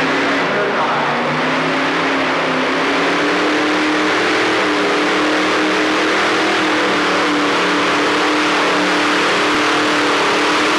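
Modified pulling tractor powered by two big-block Chevrolet V8 engines running flat out. The pitch climbs over the first second, then holds steady and loud, as on a pull down the track.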